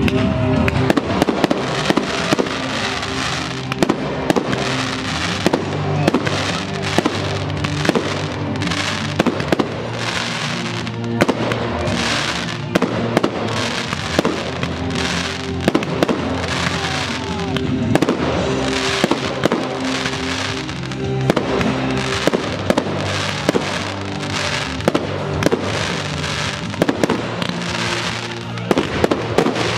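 Fireworks display: dozens of bangs from bursting shells, going off irregularly throughout, several close together at times, over music with long held notes.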